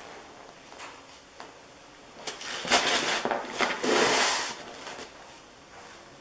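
The corroded lead plate and glass-mat separator of a spiral-wound Optima AGM battery cell being pulled flat and scraped apart by hand and with a pointed tool. It makes a rough crackling scrape of about two seconds in the middle, with scattered small clicks around it. The plates are crumbling apart from heavy corrosion.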